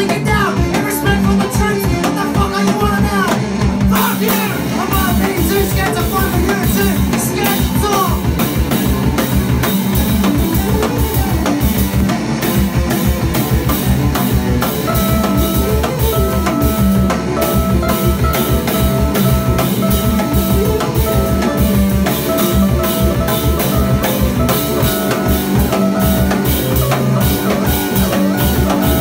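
Live rock band playing loudly, with a fast drum kit beat, electric guitar and a singer's voice over it. About halfway through, high held notes repeat over the beat.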